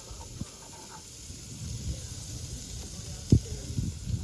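Sliced yellow summer squash sizzling softly in olive oil in a hot skillet, with low handling knocks against the pan, one sharper knock about three seconds in.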